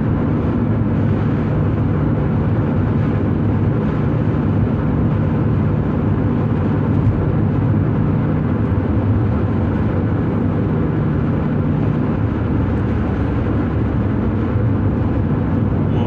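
Steady engine hum and tyre noise inside a car cruising at highway speed.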